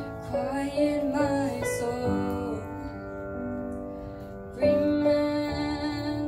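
A girl singing a slow song into a microphone over piano accompaniment. She sings a phrase, the piano carries on alone for a couple of seconds, and she comes back in with a long held note near the end.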